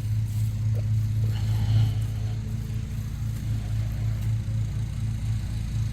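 A steady low mechanical hum, like a distant engine or motor running, with a few faint ticks over it.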